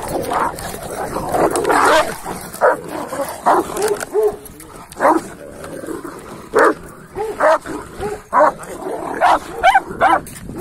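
Two large shepherd dogs fighting, with repeated short barks, growls and yelps in quick outbursts.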